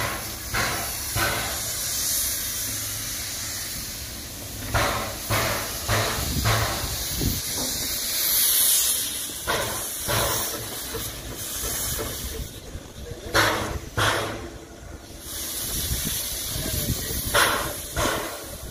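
Steam locomotive hissing steam steadily, with short, louder whooshes every second or few seconds at irregular intervals.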